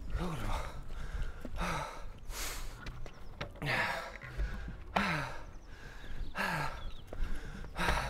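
Footsteps scuffing on gritty concrete, roughly one every three quarters of a second, with heavy breathing: a short exhale that falls in pitch about every second and a half.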